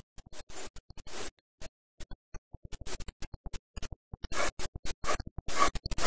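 Fingers rubbing and scratching on a small easy-open sardine can as it is handled and turned over: a choppy run of short scratchy clicks that grows louder and denser in the second half.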